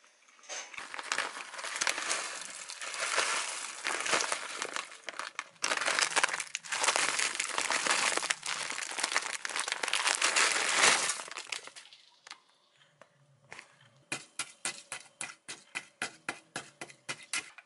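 Frozen cauliflower rice being poured from a plastic container into an aluminium pot, a dense crackling rustle of loose frozen grains that stops about twelve seconds in. After it, a run of quick, even clicks, about three or four a second.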